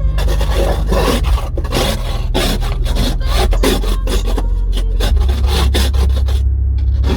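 Rough, repeated scraping strokes, about three a second, of snow and ice being cleared off a car's windows, over a steady low hum. The scraping stops about six and a half seconds in.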